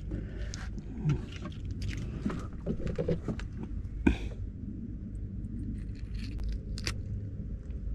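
Metal fishing pliers clicking and scraping, with small knocks of handling, as a deep-swallowed hook is worked out of a small fish's mouth. Under it runs a steady low rumble.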